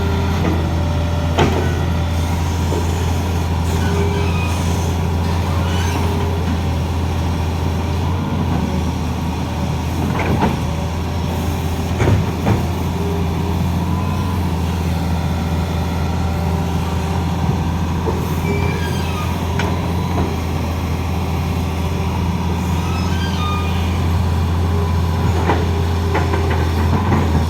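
Heavy diesel engine running steadily, with a few short sharp knocks, around ten and twelve seconds in.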